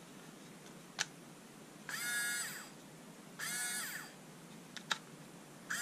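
Black & Decker cordless screwdriver's small electric motor run in two short bursts of about half a second, a steady whine each time, with a couple of sharp clicks between. The freshly oiled motor is running smoothly on its new lithium battery.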